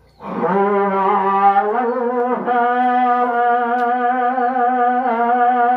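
Background music: one melodic instrument starts abruptly and plays two long held notes, the second a step higher and sustained with a slight waver.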